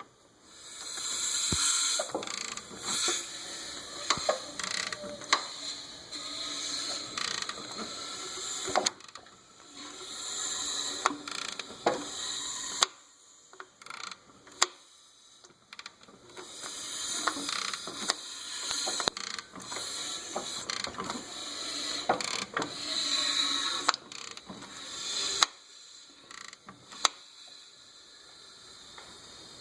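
Nissan Titan engine running with a ticking, rattling noise from the front of the engine, the sign of a stretched timing chain. The clatter swells and fades, with sharp clicks scattered through it.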